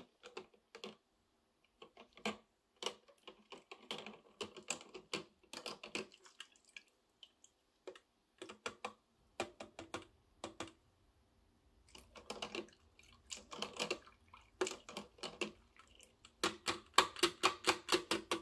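Irregular light plastic clicks and rattles from the white plastic basket of an ultrasonic cleaner being lifted out of its water tank, with water dripping off it. A quicker run of clicks comes near the end.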